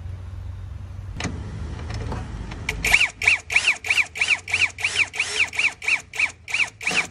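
Dekton cordless drill/driver driving a bolt in short trigger bursts: its motor whine rises and falls about three times a second, starting about three seconds in, after a low hum and a single click.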